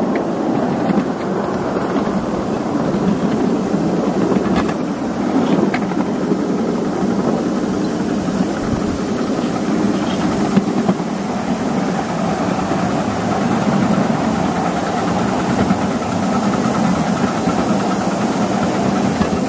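Ride-on miniature railway train rolling along the track, its wheels and running gear making a steady running noise.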